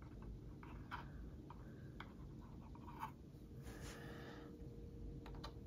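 Faint, scattered small clicks and a soft scratching about four seconds in: hands handling fine rigging line on a plastic model ship.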